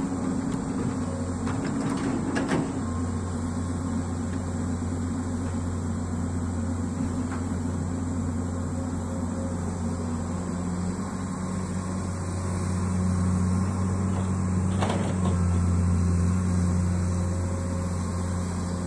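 Komatsu long-arm amphibious excavator's diesel engine running steadily under hydraulic load as the boom digs and lifts peat, getting louder for a few seconds past the middle. A few faint clicks sound near the start and once more later on.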